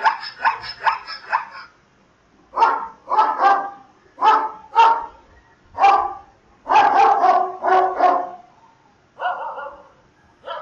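A zebra's quick run of about six yelping barks, then a dog barking repeatedly, in short barks and doubles with brief pauses between them.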